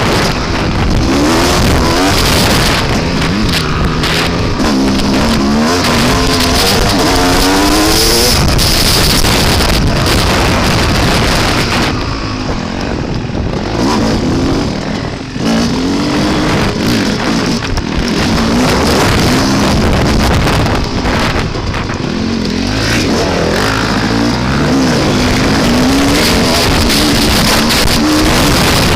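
Dirt bike engine being ridden, revving up and down as the rider works the throttle, with heavy wind noise buffeting the camera microphone.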